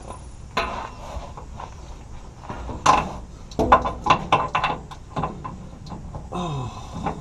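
Hand wrench clinking and knocking on a steel bolt and mounting bracket as the bolt is worked into the fuel-tank cage, with a quick run of sharp metal clicks in the middle.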